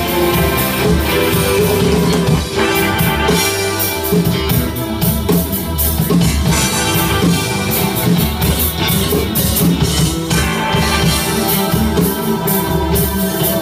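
Rock band playing live, loud: electric guitar, bass guitar and drum kit in an instrumental passage.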